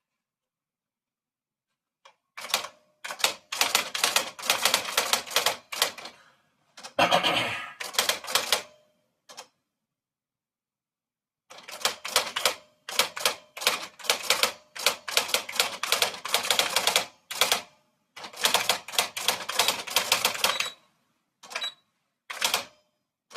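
Typewriter being typed on: quick runs of sharp key strikes, starting about two seconds in, broken by short pauses, with a longer unbroken stretch about seven seconds in.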